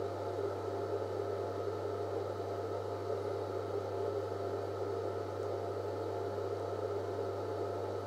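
Steady low electrical hum with a faint even hiss over it, unchanging throughout, with no clicks or other events.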